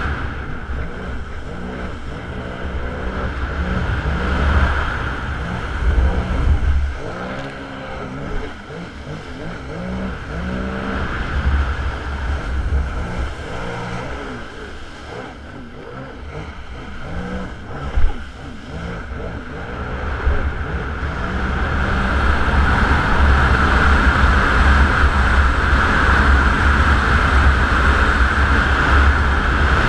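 Sea-Doo Spark personal watercraft's three-cylinder four-stroke engine running under way, its pitch rising and falling repeatedly through the middle as the rider throttles up and back, then steadier and louder in the last third. Wind rumbles on the helmet camera's microphone and water spray hisses, with a sharp thump about 18 seconds in.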